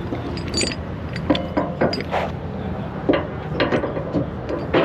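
Irregular metallic clanks and rattles of heavy equipment being handled, over a steady low engine rumble.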